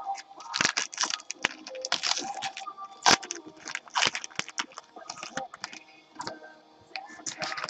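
Baseball-card pack wrapper being torn open and crumpled by hand: a rapid run of sharp crackles and crinkles, the sharpest about three seconds in.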